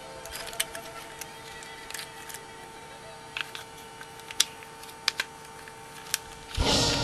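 Irregular small plastic clicks and snaps as the joints and panels of a Star Wars Transformers Captain Rex toy are twisted and folded by hand, over faint background music. Near the end the music comes in much louder.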